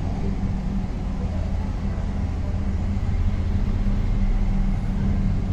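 A steady low rumble with a hum, a constant background noise with no taps or other events standing out.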